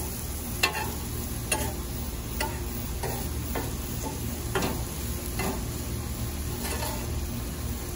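Sliced steak, peppers and onions sizzling on a hot cast iron griddle while a metal spatula scrapes and chops through them, clacking on the iron about once a second.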